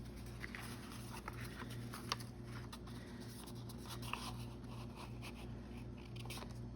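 Paper being handled at a craft table: light rustling and small scattered taps and scratches as a paper piece is fitted onto a journal page. A steady low hum runs underneath.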